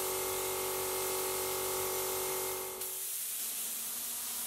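Gravity-feed air spray gun hissing steadily as compressed air atomises paint. A steady hum with a tone runs under it for about the first three seconds, then stops.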